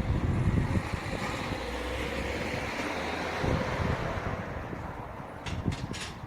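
Wind buffeting the microphone outdoors, with a rushing noise that swells and fades over several seconds, and a few sharp clicks near the end.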